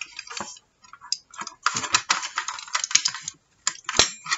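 Hinged metal book rings clicking and rattling as they are opened and worked out of the punched holes in chipboard covers. A dense flurry of small clicks in the middle, and one sharp click near the end.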